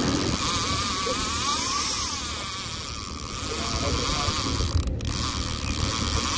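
Conventional trolling reel's drag buzzing with a wavering whine as a hooked fish pulls line off the spool, over a low rumble from the boat's outboard. The sound cuts out for an instant about five seconds in.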